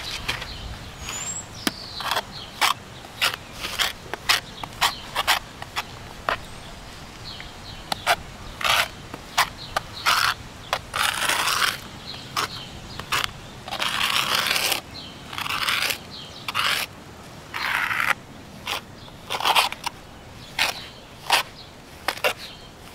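Steel trowel working wet mortar: many sharp clicks and taps of the blade against the plastic bucket as the mortar is stirred and scooped, and several longer scrapes as it is spread onto a concrete pier.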